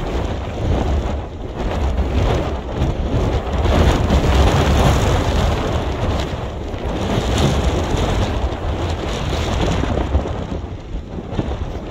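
Wind buffeting the microphone: a loud low rumble that swells and eases in gusts.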